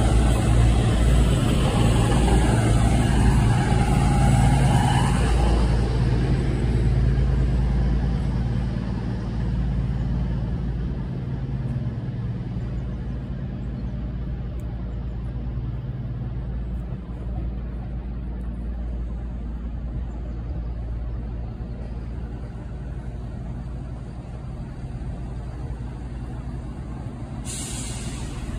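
CrossCountry Voyager diesel multiple unit running on its underfloor diesel engines with a steady low drone that fades away over the first ten seconds or so, leaving a quieter steady diesel rumble. Near the end a brief hiss is heard.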